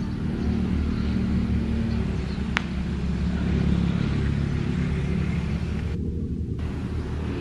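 Diesel locomotive engine running with a steady low rumble. A single sharp click about two and a half seconds in.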